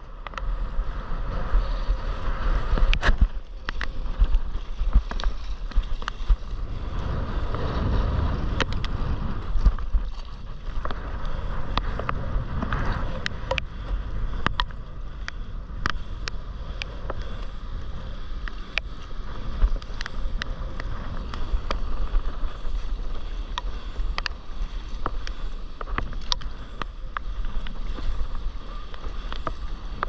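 Water sloshing and splashing around a stand-up paddleboard as it is paddled over choppy sea, with wind buffeting the microphone as a steady low rumble and scattered sharp ticks throughout.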